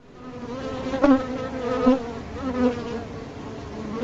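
Honeybees buzzing: a steady drone whose pitch wavers and swells a few times, fading in over the first second.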